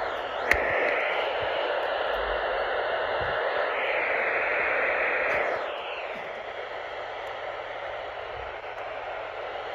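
Radio static: a steady hiss from a radio receiver with no signal, with a sharp click about half a second in. The hiss drops in level about six seconds in.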